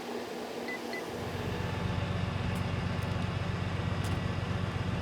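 A vehicle engine running steadily, a low rumble that comes in about a second in and holds, preceded by two faint short beeps.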